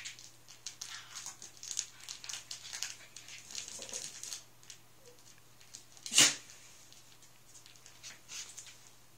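Cairn terrier puppies scuffling in play, their paws and claws making quick little ticks and scrabbles on a fabric mat and tile floor through the first four seconds. About six seconds in comes one short, loud dog yap, the loudest sound. A few quieter scuffles follow near the end.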